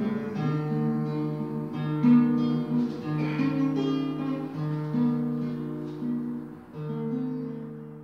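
Instrumental music played on what sounds like acoustic guitar, a slow line of held notes and chords that fades out near the end.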